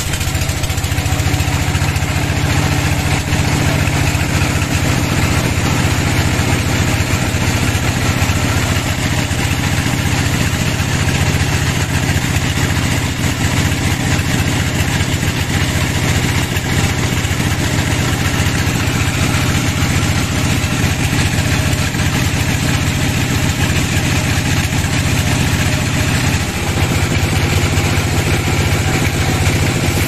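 Band sawmill running steadily, its blade cutting lengthwise through a large log: a continuous loud mechanical drone with the hiss of the blade in the wood.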